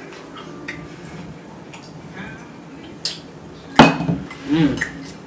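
Tableware clinks while eating a seafood boil: a few light clicks, then a sharp clack against a dish with a short ring a little under four seconds in.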